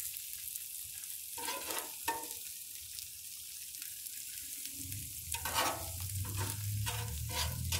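Burgers and onions sizzling on a Blackstone flat-top griddle, with a metal spatula scraping across the griddle and turning the onions, in a short stroke about a second and a half in and several more toward the end.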